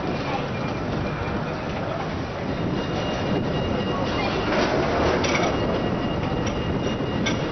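Tram running on street rails with a steady rumble of wheels on track. A faint high wheel squeal comes and goes, and there are a few short clicks in the second half.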